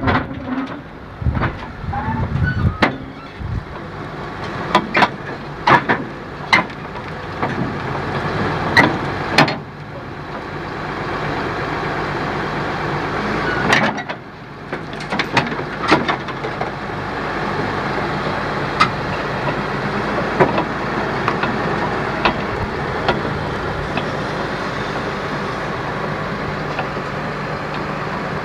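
Caterpillar D6N LGP crawler dozer's diesel engine running under load as it crawls up onto a lowboy trailer, with sharp metal knocks and clanks from its steel tracks on the ramps and deck every second or two. The engine sound grows steadier and a little louder in the second half.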